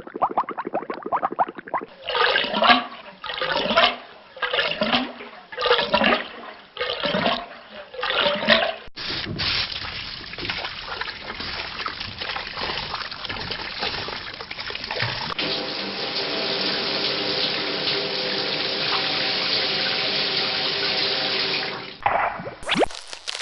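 Water gurgling in a series of separate surges, then after an abrupt change a steady rush of running water, which picks up a faint ringing tone about two-thirds of the way through.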